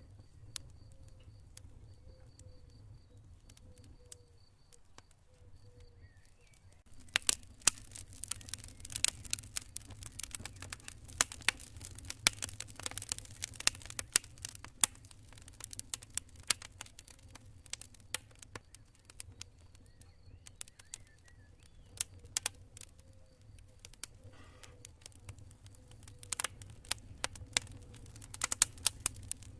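Campfire burning with a low steady rumble, breaking into dense crackling and popping about seven seconds in.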